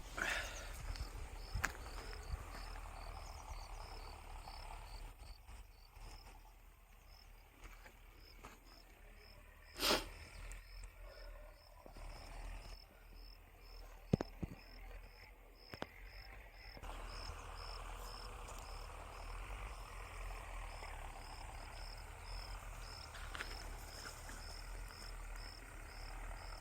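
Insect chirping steadily at a high pitch, about two chirps a second, over a low outdoor rumble. A sharp click about ten seconds in and a couple of short knocks near fourteen seconds.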